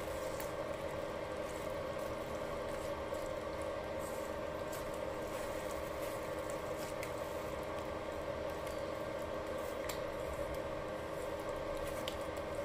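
Battery-powered electric spice grinder running steadily as it grinds seasoning into a wok of simmering shrimp, with a few faint clicks.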